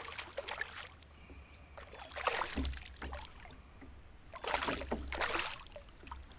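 A hooked fish thrashing at the water's surface, splashing in three bursts about two seconds apart.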